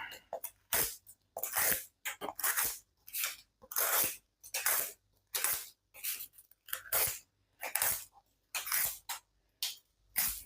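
QSP Hedgehog slipjoint pocket knife slicing through double-thick cardboard in quick repeated strokes, about two or three rasping cuts a second, with a blade that has not been sharpened or stropped.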